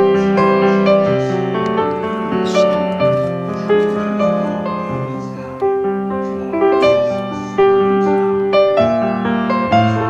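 Background piano music: a slow melody of struck notes, a new note about every second, over lower bass notes.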